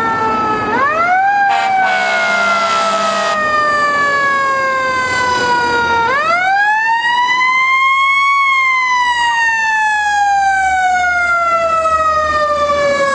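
Fire apparatus siren wailing. It winds up twice, just under a second in and again about six seconds in, and after each rise slowly falls in pitch over several seconds. A short harsh blast lasting about a second and a half sounds over the first rise.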